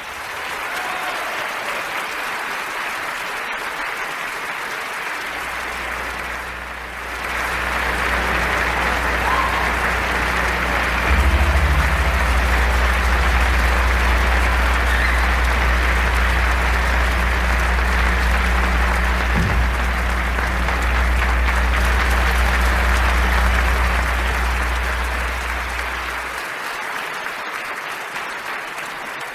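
Concert audience applauding, the clapping swelling about seven seconds in. A steady low hum runs underneath for most of it and stops near the end.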